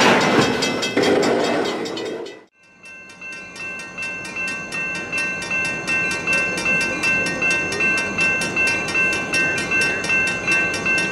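Freight cars rolling close past the track, ending abruptly about two and a half seconds in. Then a railroad grade crossing bell rings steadily at about two strokes a second, over the low rumble of an approaching train.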